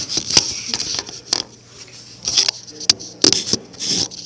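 Objects being handled close to the microphone: irregular clicks, knocks and short rustles, several to the second at times.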